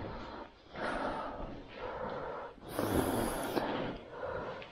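A person breathing close to the microphone, a few breaths in and out, the loudest about three seconds in.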